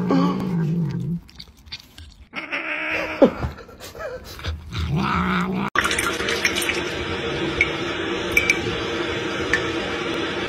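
A kitchen tap running a thin stream of water into a steel sink: a steady splashing that starts abruptly about halfway in. Before it come shorter, broken sounds.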